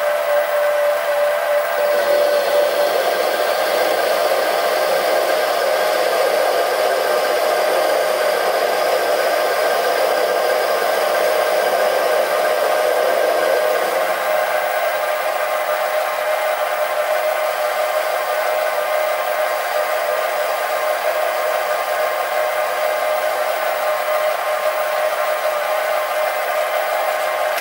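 Sieg SC3 mini-lathe running with a steady motor whine while a tool takes light cuts, about ten thou at a time, off a quarter-inch mild steel rod. The tone shifts slightly about two seconds in and again about halfway through.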